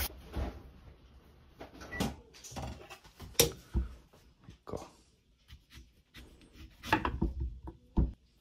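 Scattered knocks and clicks of a kitchen knife and a daidai bitter orange being handled and cut on a wooden cutting board. The sharpest knock comes about three and a half seconds in, with more knocks near the end.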